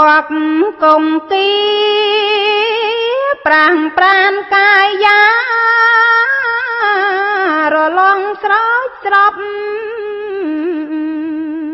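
A woman chanting Khmer smot, Buddhist verse recitation sung solo without accompaniment. She sings long, drawn-out melismatic phrases with a wavering vibrato on the held notes, broken by short breaths.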